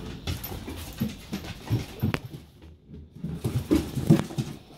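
Dogs play fighting: panting in irregular bursts, with a sharp click about two seconds in, a brief lull just before three seconds, and the loudest bursts near the end.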